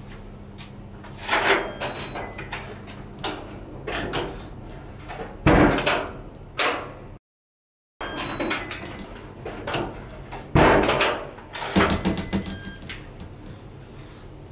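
Apartment front door being opened and shut: clicks of the latch and lock, and loud thumps as the door closes, about five seconds in and again about ten and a half seconds in. There is a moment of dead silence in between.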